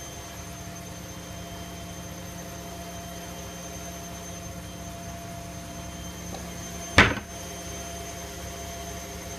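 Washing machine running with a steady hum and several held tones, and one sharp knock about seven seconds in.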